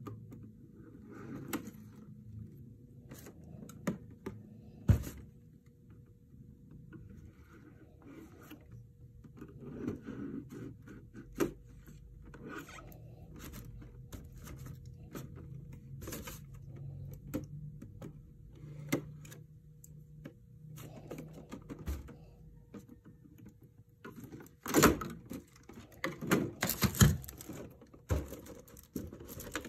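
Handling noise of plastic figure packaging: scattered clicks, taps and scrapes as a clear plastic case is cut open and slid apart, with a louder run of plastic knocks and rustles near the end.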